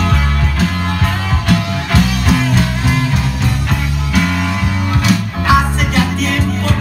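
Loud dance music played over a sonidero sound system, with a heavy bass line and a steady beat.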